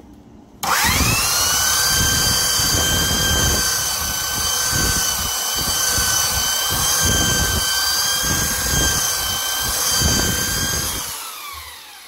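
Handheld power sander with a sanding drum spinning up with a rising whine, running steadily while sanding cured epoxy molding clay filler flush with the wood, with a rhythmic grinding underneath, then switched off near the end and winding down with a falling whine. The filler has cured hard enough to sand.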